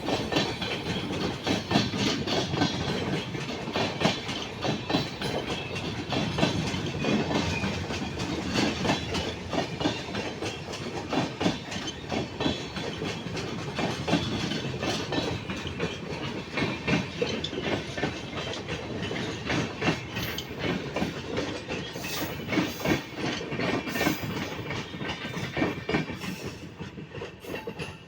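Indian Railways train running on the track, its wheels clattering in quick irregular clicks over the rail joints under a steady rumble. The sound fades away near the end.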